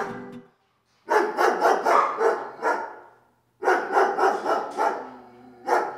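Runs of quick, repeated canine barks, about four a second, in two long bursts with a short pause between and another beginning near the end.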